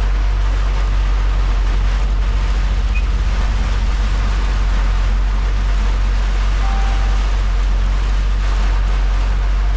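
Heavy rain and tyre spray hissing on a wet road, heard from inside a moving truck's cab over the steady low drone of its engine.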